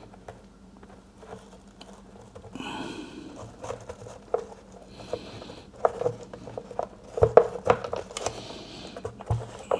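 Rotary brush roll being fitted into the plastic floor head of a Bosch Move 2in1 stick vacuum by hand: a run of light plastic clicks and knocks, loudest about seven seconds in, with a brief rustle about three seconds in.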